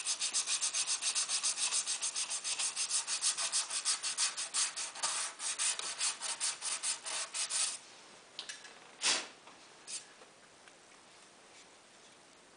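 Ratchet wrench clicking rapidly, about six clicks a second, as the bolts securing the snowmobile recoil starter's plastic housing are run down; the clicking stops about eight seconds in, followed by a few separate knocks, the loudest about nine seconds in.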